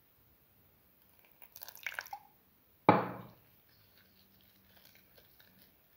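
Thick chickpea-flour batter being stirred with a spoon in a bowl: wet squishing and scraping, a short clatter about a second and a half in, and one sharp knock about three seconds in, the loudest sound.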